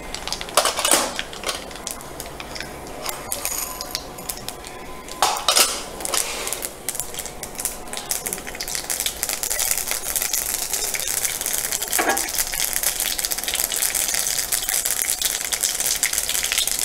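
Mustard seeds spluttering in hot oil in a cast-iron kadai, a fine crackle of pops that grows denser and louder over the second half as the seeds heat, the tempering stage before the next ingredient goes in. A few knocks of a utensil against the pan are heard, about a second in, near the middle and once more later.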